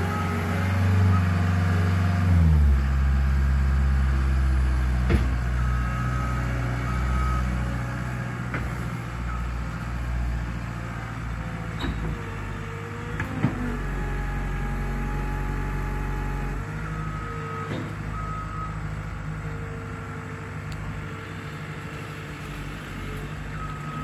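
A loader's engine working steadily, its note shifting a couple of times, with the machine's backup alarm beeping in short spells as it reverses. A couple of sharp knocks stand out, about five seconds in and again past the middle.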